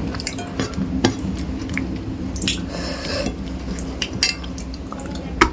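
Dishes and a plate clinking in scattered sharp clicks, with wet squishing of rice and fish curry being handled and eaten.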